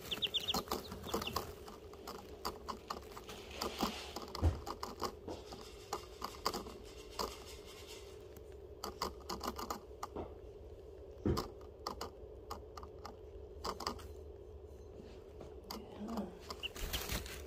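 Young chicks pecking and scratching in wood-shaving bedding right beside the microphone: a scattered run of light clicks and rustles, with a few peeps at the very start.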